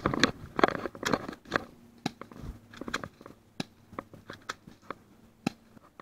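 Footsteps crunching through dry leaf litter and twigs, dense and loud for about the first second and a half, then a few scattered sharp clicks and crackles as the movement stops.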